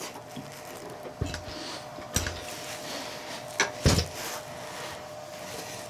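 A few knocks and bumps as a heavy wooden log is shifted about on the lathe and its support jack, the loudest a thump a little before the four-second mark, over a faint steady hum.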